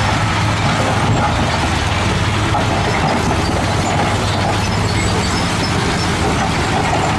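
Heavy dump trucks' diesel engines running steadily as their hydraulic beds tip, with loads of rock and earth sliding and pouring out.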